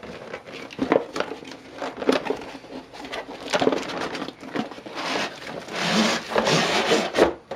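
Cardboard keyboard box being handled: scattered knocks and scrapes of cardboard, then a longer rasping slide of cardboard on cardboard from about five and a half seconds in as the brown inner carton is drawn out of its printed outer sleeve.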